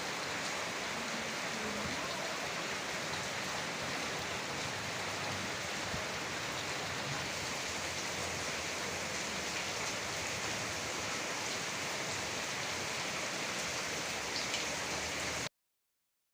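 Steady downpour of storm rain, an even hiss with no let-up, cutting off abruptly near the end.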